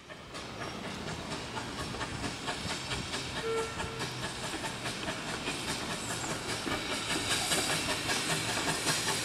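Pannier tank steam locomotive running light, its exhaust beats and steam hiss growing louder as it approaches.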